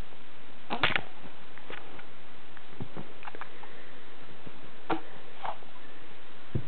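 A baby's sniffs and soft mouthing and sucking noises on its fist, a hunger cue: a short snuffle about a second in, then a few faint, scattered clicks over a steady hiss.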